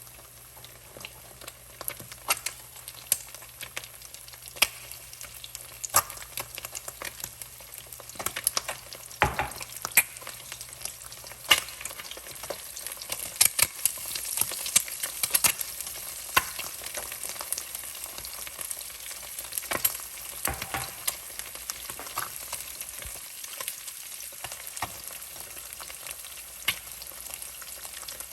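Eggs frying, a steady sizzle broken by many irregular sharp pops, thickest a little past the middle.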